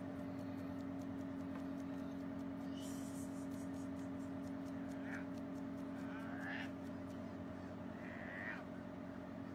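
Puppies wrestling, giving three short high-pitched whines or yelps in the second half, over a steady background hum with one low tone.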